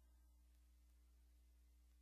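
Near silence: a pause in the recitation, with only a faint low hum from the recording.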